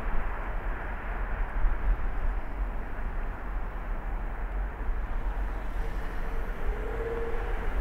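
Steady road noise of a car driving: a low rumble with tyre and engine hum, and no distinct events.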